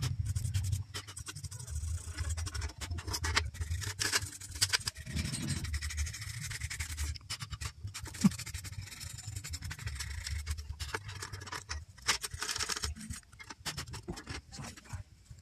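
Irregular scratching and light clicking from hands handling an open computer power supply, its circuit board and sheet-metal case, with a low rumble of handling noise underneath.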